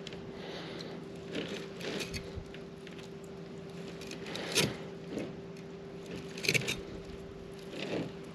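Fillet knife cutting along a heavily scaled fish on a cleaning table: scattered crackly scrapes of the blade through scales and skin, the loudest about four and a half and six and a half seconds in, over a steady low hum.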